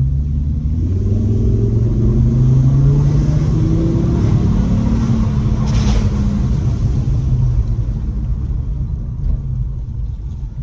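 Volvo car's engine heard from inside the cabin while reversing, its pitch rising over the first couple of seconds, holding, then easing off. A single short knock about six seconds in.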